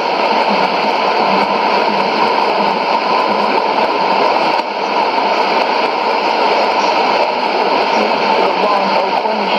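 Shortwave AM broadcast on 6005 kHz playing through a Sony portable receiver's speaker: a steady rush of static and hiss with the station's audio weak underneath.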